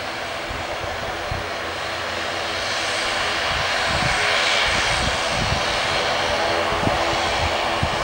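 The ATR 72-500's twin Pratt & Whitney PW127 turboprop engines and propellers running as the airliner rolls along the ground. The propeller noise swells about four seconds in, then holds steady.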